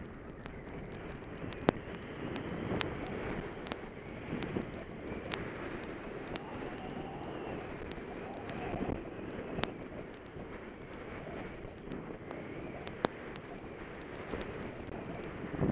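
Skis scraping and sliding over packed snow on a downhill run, with wind rushing over the microphone. Sharp clicks sound every few seconds.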